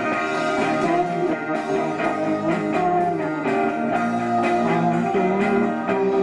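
Live rock band playing, with guitar to the fore: sustained ringing chords over a steady pulse of strokes.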